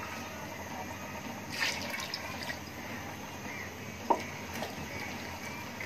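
Water being poured into a large aluminium cooking pot of rice and meat and stirred in with a wooden spoon, with a sharp knock about four seconds in.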